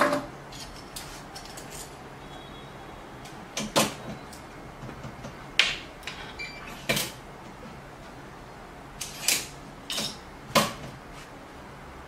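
A wooden cabinet door and its electronic cabinet lock: a series of about seven sharp clicks and knocks, spaced a second or more apart, as the door is shut and a key tag is held to it to work the lock.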